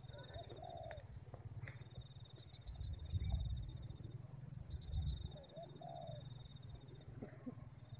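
Marsh ambience. A high, pulsing insect trill comes in spells of two to three seconds, and a bird gives a short, wavering, low call twice, about half a second in and again about five and a half seconds in. Under them is a low rumble that swells around three and five seconds.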